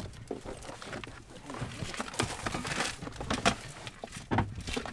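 A car door is unlatched and opened, then clicks, knocks and rustling follow as someone climbs out of the vehicle.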